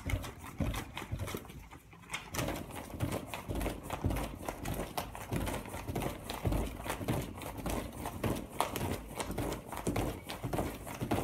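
A stack of paper envelopes sealed by hand in quick succession: a rapid run of paper flicks and soft slaps against the tabletop as each flap is pressed shut. There is a brief pause about two seconds in.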